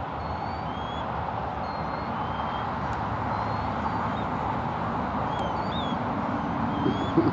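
Steady rush of distant road traffic, with short, high chirps and whistles of small birds scattered throughout.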